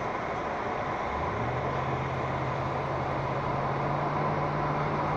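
Steady road and engine noise inside a moving car's cabin, with a low engine drone that comes in about a second in and then holds steady.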